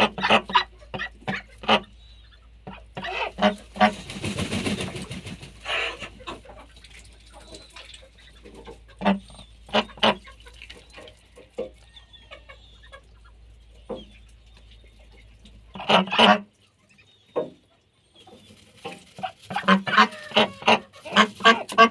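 Ducks quacking in bursts of short, rapid calls with quieter pauses between. The densest run comes near the end. A brief rush of noise comes about four seconds in.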